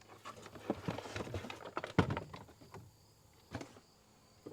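Packaging being handled while a chainsaw sharpener is unboxed: irregular rustling and crackling for a few seconds, with a sharp knock about two seconds in and a lighter one a little later.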